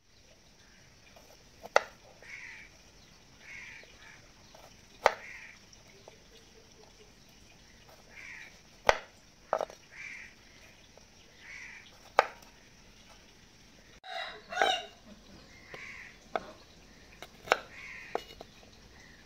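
Serrated kitchen knife cutting karonda berries in half on a wooden chopping board: about seven sharp knocks of the blade hitting the board, a few seconds apart. Chickens cluck and call in the background throughout.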